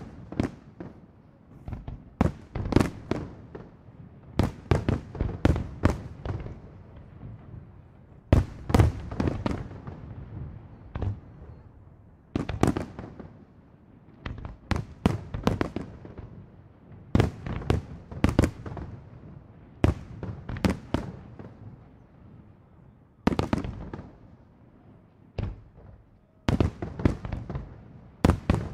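Aerial fireworks shells bursting in rapid volleys: dozens of sharp bangs in quick clusters, with short lulls of a second or two between volleys.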